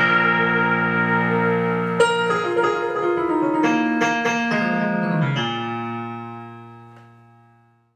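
Clean hollow-body electric guitar playing a closing run of chords, the lower notes stepping down, then a final chord left to ring and fade out.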